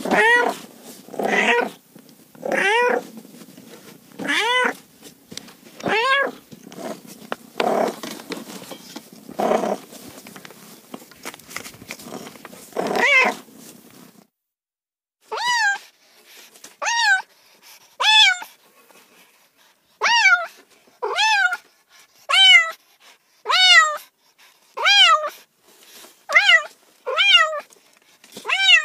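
Cats meowing repeatedly. For the first half the meows come about every one and a half seconds over a background hiss. After a short break about halfway, the meows come in a quicker, even series a little more than once a second, each rising and falling in pitch.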